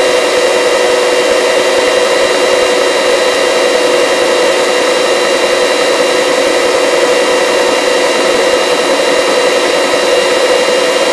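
Search-and-rescue helicopter in flight: the turbine engine and rotors make a loud, steady whine of several held tones over a constant hiss.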